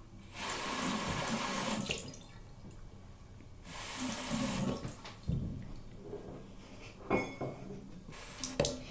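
Water tap running in two short spells, rinsing water through a fidget spinner's bearing, followed by a few light knocks and handling clicks.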